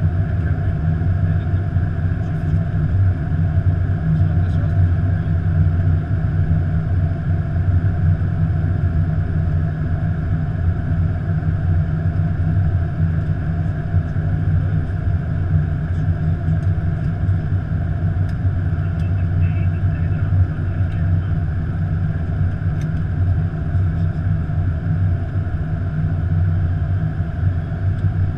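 Steady flight-deck noise inside an Airbus A330-200 on approach: an even low rumble of air and engines.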